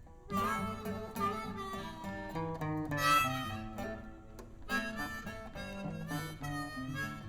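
Blues band instrumental intro: harmonica playing bent notes over guitar.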